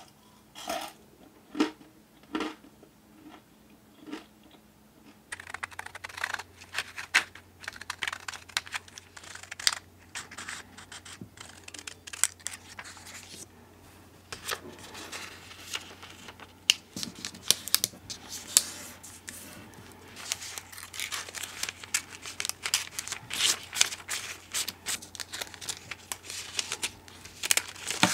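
A few light taps, then, from about five seconds in, thin clear cellophane treat bags rustling and crinkling as they are smoothed flat and a cookie is slid into one.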